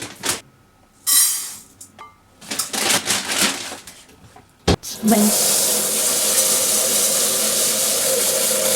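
Kitchen tap turned on about five seconds in and left running steadily, water for rinsing rice. A few short knocks and rustles come before it.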